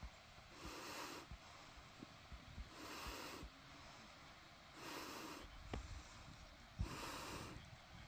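Faint breathing close to the microphone: four slow, even breaths about two seconds apart, with small low knocks between them.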